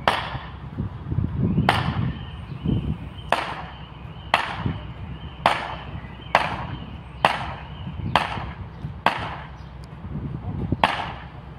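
Level crossing warning alarm sounding as the red lights flash: a sharp, struck ding with a short ringing tail, repeating about once a second.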